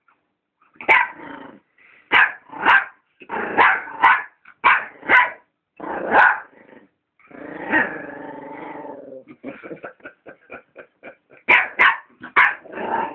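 A pet dog barking at a hamster: about nine sharp barks, then a growl of about two seconds, a quick run of short yips, and three more barks near the end.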